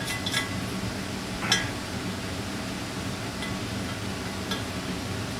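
A few light metallic clicks, the clearest about one and a half seconds in, as a hand tap and tap wrench are worked in a bolt hole of an aluminium intake manifold, over a steady low hum.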